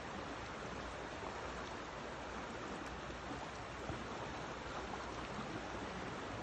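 Shallow river water rushing steadily over a riffle.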